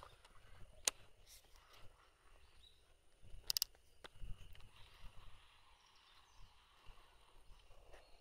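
Handling noise from a baitcasting rod and reel being worked: low rumbling, with a sharp click about a second in and a quick cluster of clicks about three and a half seconds in.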